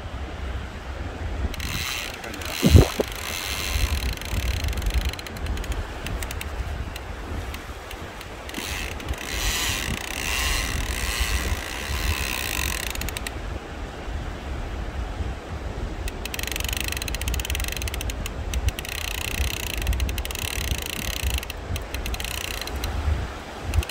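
Large conventional fishing reel ratcheting in three long runs of rapid clicking as line is wound in under load from a hooked fish. Wind rumbles on the microphone, with one sharp knock about three seconds in.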